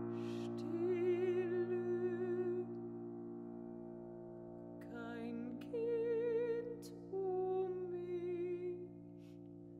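Mezzo-soprano singing short phrases of an art song in a wide vibrato over sustained piano chords. She sings a held note about a second in and two more phrases from about five seconds, which die away near the end as the piano chord lingers.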